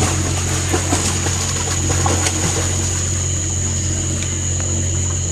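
A boat's machinery running with a steady low hum and a thin, steady high whine over it, with light water splashes in the first couple of seconds.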